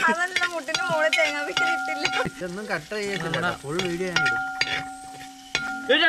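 A spatula stirring and scraping through onions and green chillies sizzling in a metal frying pan, with clicks of the spatula against the pan. Voices run loudly over it throughout, along with a steady held tone that breaks off and comes back.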